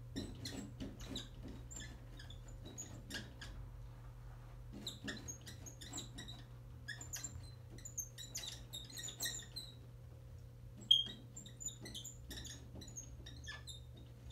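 Dry-erase marker squeaking across a whiteboard as words are written, in short strokes with brief pauses between them and one sharper squeak just before 11 seconds in.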